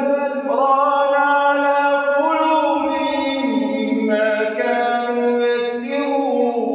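A man reciting the Quran in a melodic chanted style, holding long drawn-out notes that step up and down in pitch without a break.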